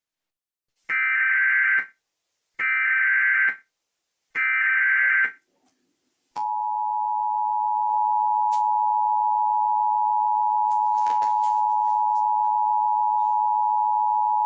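Emergency Alert System tones: three one-second bursts of the SAME header's harsh digital data screech, a second apart, then the long steady two-tone attention signal starting about six seconds in.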